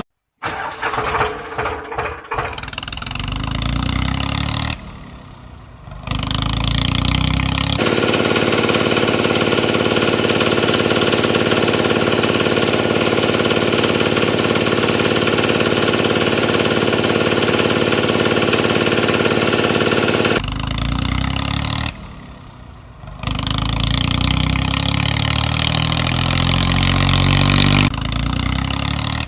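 Tractor engine running, with a long steady stretch in the middle and uneven, rising revs around it, dropping away briefly twice.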